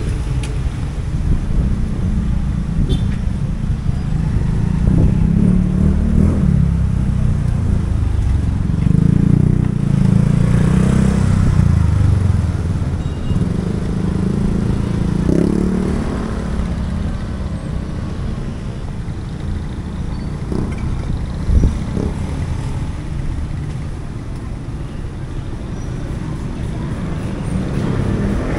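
Street traffic: motor vehicles running and passing, a heavy low rumble that is louder in the first half and eases toward the end. A single sharp knock about two-thirds through.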